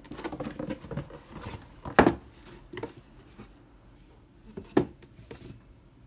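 Corrugated cardboard box being folded shut by hand: the cardboard flaps rustle and scrape, with a sharp knock about two seconds in and another near five seconds as flaps close and the box is handled.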